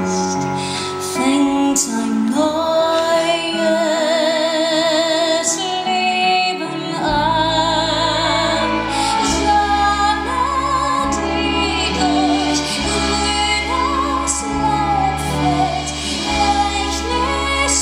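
A woman singing a slow ballad live into a microphone, with keyboard and band accompaniment. Her held notes waver with a wide vibrato, and a deep bass line comes in about seven seconds in.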